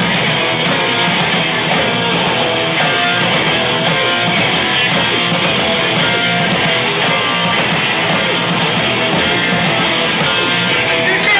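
A rock band playing live, led by loud electric guitar, with no vocals.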